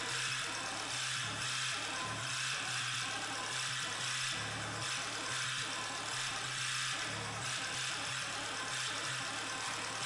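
Modular synth patch: a DIY doorbell-kit module driven by a step sequencer through a Uoki-Toki filter and mixer delay. It plays a repeating pattern of low stepped notes under a harsh, hissing buzz, picked up by a camera microphone off the speakers.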